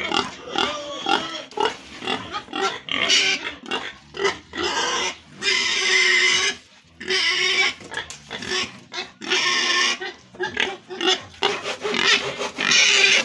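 Pigs squealing and grunting over and over, with a few longer, loud squeals.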